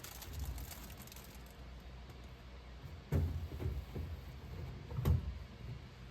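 Soft knocks and handling sounds of kitchen work, with a louder thud about three seconds in and another, the loudest, about five seconds in.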